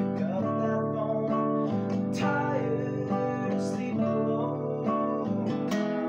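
Nylon-string classical guitar strummed in chords, with a man singing over it.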